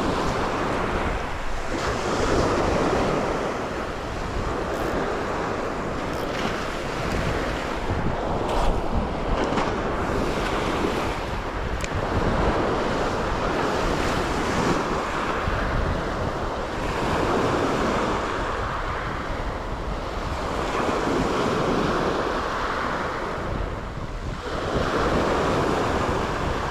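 Sea surf washing onto the shore, swelling and easing every few seconds, with wind buffeting the microphone.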